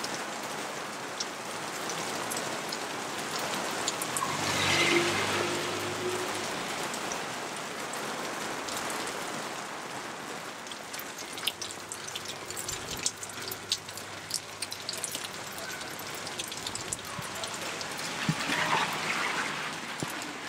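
Heavy rain falling on a city street: a steady hiss of rain with scattered drops splattering on hard surfaces. Twice something passes through the wet street, swelling and fading, about five seconds in and again near the end.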